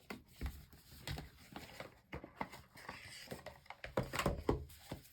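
Tarot cards being handled and pulled from a deck: scattered soft taps and knocks, with a short run of them about four seconds in.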